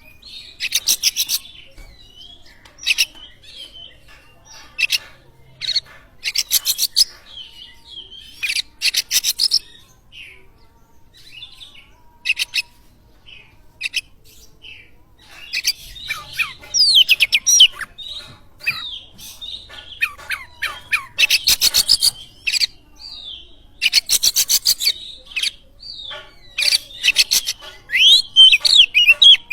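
Oriental magpie-robin (kacer) singing a long varied song: short bursts of fast harsh rattling notes every couple of seconds, mixed with rising and falling whistled phrases that grow denser in the second half.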